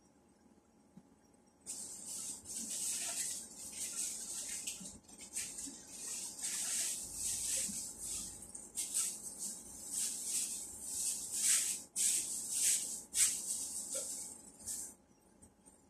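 Rustling and crinkling of things being handled by hand, in a quick string of short bursts starting about two seconds in and stopping near the end.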